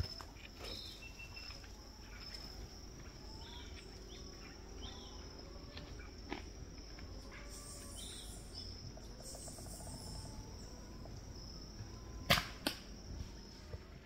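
Slingshot shot fired at a perched bird about twelve seconds in: a sharp snap of the released bands, with a second, smaller crack about half a second later. Under it runs a steady high insect drone with faint bird chirps.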